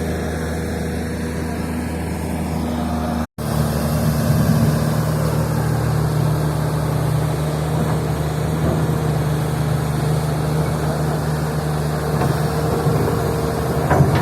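Freshly overhauled turbocharged Komatsu S6D105 six-cylinder diesel of a PC200-6 excavator running steadily. After a brief cut about three seconds in, it runs a little louder with a different pitch.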